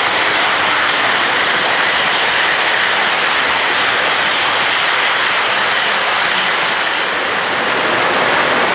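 Model freight train of boxcars rolling past close by on the layout track: a steady, even rolling noise of its wheels on the rails.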